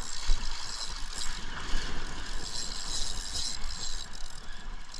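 Spinning reel being cranked with a continuous ratcheting whir as a hooked fish is reeled in.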